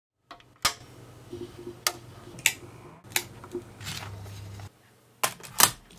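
A clear plastic cassette case and a metal-position (Type IV) cassette tape being handled: about six sharp plastic clicks as the case is opened and the tape taken out and turned, with quiet rustling between.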